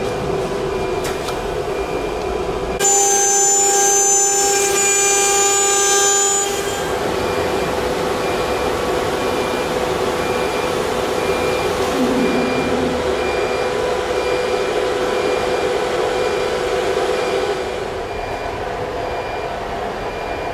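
Steady hum of running workshop machinery with fixed tones. About three seconds in, a louder high-pitched whine joins it and stops near seven seconds.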